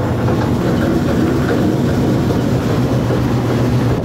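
Screw-drive wheelchair lift running as its car travels up: a steady low electric-motor hum with a rough mechanical drive rumble over it.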